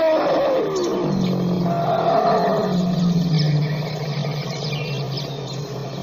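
African elephant calling: the end of a pitched call sliding down in pitch, then from about a second in one long, low, steady call that slowly fades near the end.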